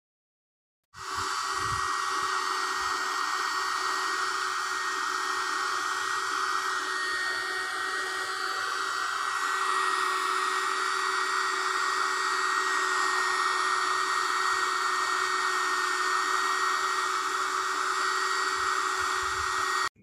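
Mini USB vacuum cleaner running as it vacuums a laptop keyboard: a steady whine over a rush of air. It starts abruptly about a second in.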